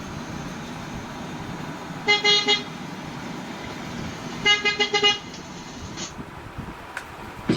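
Vehicle horn honking over steady background noise: one short blast about two seconds in, then a broken run of toots about four and a half seconds in.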